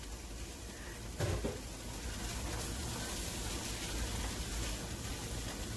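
Onions and peppers frying in a nonstick pan, a steady sizzle over a low hum, as a silicone spatula stirs them, with a short knock about a second in.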